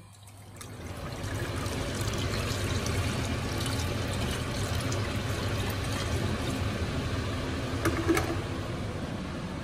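Water poured in a steady stream from an electric kettle into a saucepan over eggs, a continuous splashing fill. There is a short knock about eight seconds in.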